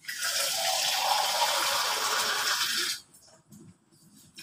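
Water running steadily for about three seconds, then stopping suddenly.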